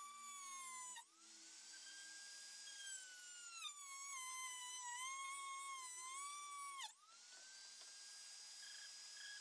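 Dremel 200 rotary tool with a metal cut-off wheel whining at high speed as it cuts through a taped graphite fishing rod blank. Its pitch sags and wavers as the wheel bites. The whine dips sharply about a second in and again near seven seconds, then picks back up.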